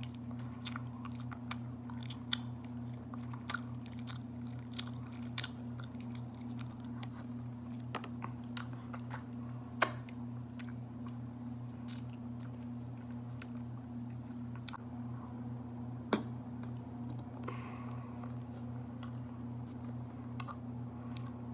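Close-up chewing of raw honeycomb: sticky, wet mouth clicks and smacks as the wax comb is worked between the teeth, with two sharper clicks about ten and sixteen seconds in. A steady low hum runs underneath.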